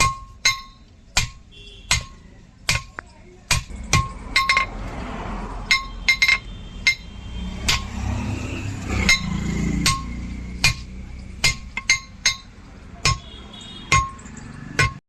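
Blacksmith's hammer striking steel on an anvil, one to two strikes a second, each with a short metallic ring. A low rumble runs underneath through the middle.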